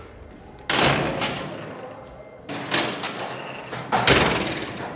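Five loud bangs, each ringing out with a long echoing decay: one about a second in, then two quick pairs, one midway and one near the end.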